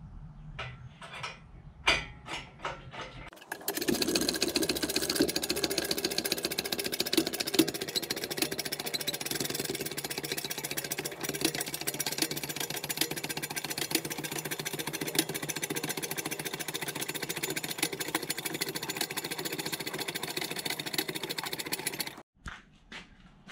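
A few clicks, then a machine running loud and steady for most of the stretch, starting suddenly and cutting off abruptly near the end.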